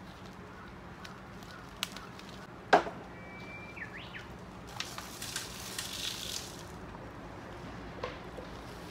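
A single sharp knock on a small plant pot, loosening the root ball, then a brief high squeak as the croton slides out of the pot. After that comes a couple of seconds of rustling and crumbling soil and leaves as the plant is handled, and another light knock near the end.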